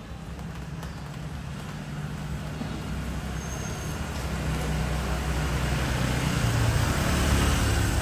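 Motor scooter engine running as it approaches and passes close by, growing steadily louder to its loudest about seven seconds in, over street traffic noise.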